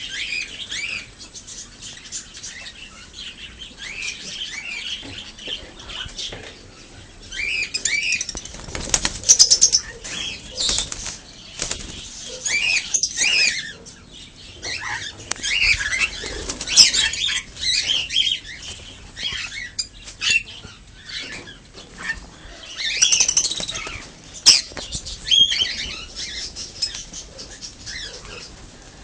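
Many birds chirping and calling over one another, with repeated bursts of wing flapping.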